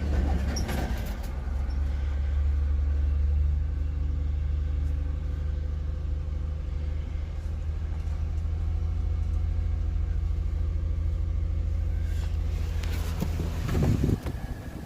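A 2003 Toyota Avalon's 1MZ-FE V6 engine idling steadily just after startup, its low hum settling slightly lower about three seconds in. A brief rustling noise comes near the end.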